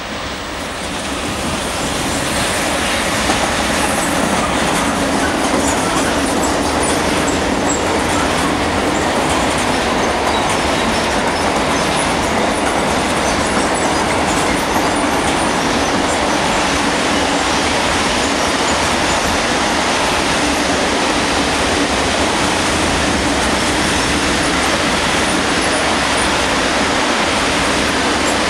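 A freight train of covered sliding-wall wagons, hauled by an electric locomotive, rolling past: a steady loud rumble of wheels on rail that builds over the first couple of seconds and then holds, with faint high squeaks here and there.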